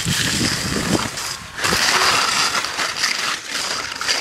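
Skis sliding and scraping over packed snow on a downhill run, a rough hissing noise that grows louder and brighter about halfway through.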